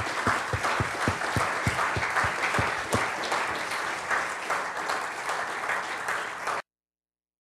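Audience applauding: dense clapping from many hands, with a run of low thumps about three or four a second during the first three seconds. It cuts off abruptly near the end.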